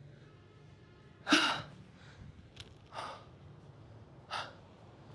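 A man breathing hard, out of breath from a set of push-ups: three heavy gasping breaths about a second and a half apart, the first the loudest.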